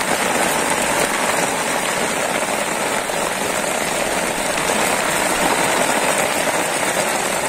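Steady rain falling on shallow floodwater, drops striking the water's surface.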